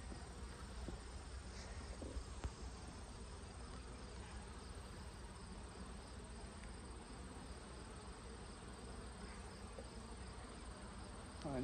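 Honeybees buzzing from an open hive as a frame of bees is lifted out: a faint, steady hum, with a couple of faint knocks about two seconds in.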